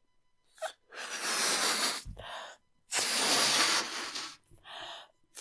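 A person blowing up a rubber balloon by mouth: two long, hissing breaths are blown into it, with shorter breaths taken in between.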